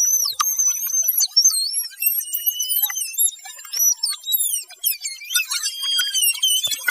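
Rapid, very high-pitched warbling and whistling glides, the clip's voice audio pushed far up in pitch by an electronic effect until no words can be made out.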